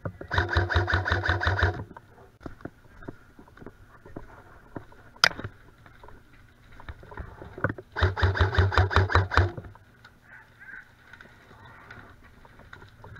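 Electric airsoft rifle firing two full-auto bursts of about a second and a half each, one at the start and one about eight seconds in: a rapid string of shots over the whir of its motor and gearbox. A single sharp crack sounds about five seconds in.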